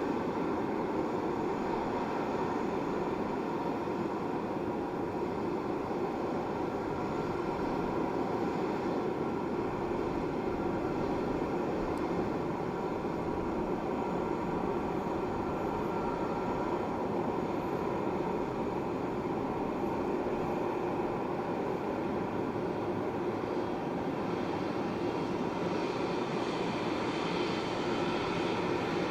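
Boeing 777-200ER jet engines running steadily, a whine of several held tones over a broad rush, growing a little louder and brighter near the end.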